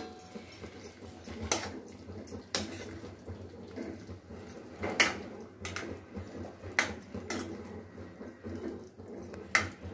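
A spoon stirring sliced mushrooms through thick masala gravy in a metal kadhai: soft scraping and squelching, with irregular knocks of the spoon against the pan, the loudest about five seconds in.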